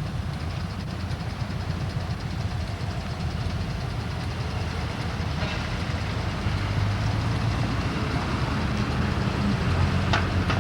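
A heavy diesel engine running with a low, steady drone that grows louder and more pronounced near the end.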